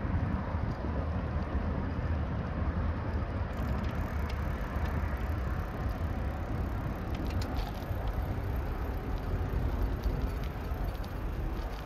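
Wind buffeting a phone microphone while it moves along a street: a steady low rumble with a few light ticks in the second half.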